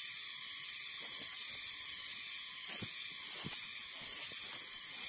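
Steady high-pitched hiss of forest background, with a few faint rustles about three seconds in.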